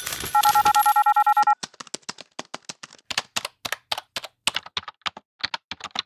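A brief electronic phone-style trill of two rapidly pulsed tones, about a second long. It is followed by fast, irregular clicking of keys being typed.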